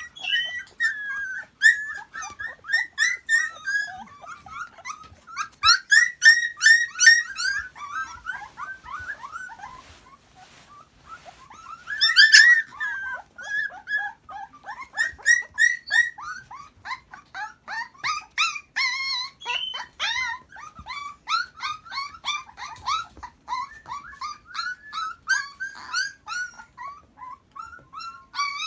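A litter of hungry Akita puppies whining and yelping, many short high cries overlapping without pause. It briefly quiets about ten seconds in, and one cry about twelve seconds in is louder than the rest.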